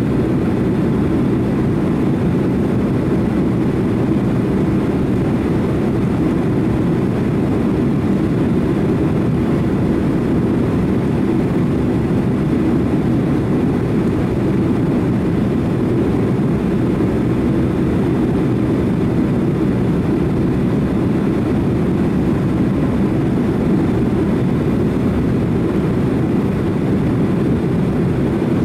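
Japan Airlines Boeing 767-300 jet airliner in flight, heard inside the cabin: a steady, low rushing noise of engines and airflow that stays unchanged throughout.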